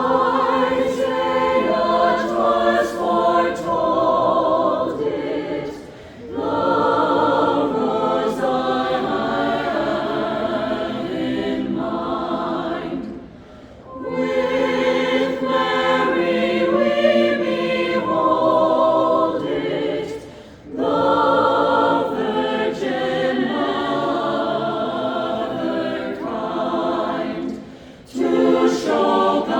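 A choir singing in phrases of about seven seconds, with brief gaps between them.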